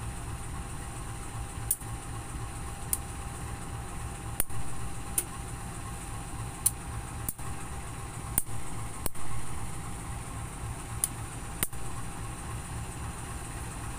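Diesel locomotive idling with a steady low rumble and a steady hum, broken by about ten sharp ticks at uneven intervals.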